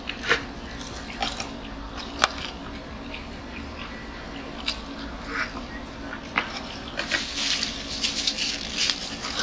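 Close-up eating sounds: chewing and lip smacks with scattered sharp clicks, growing busier near the end, over a steady low hum.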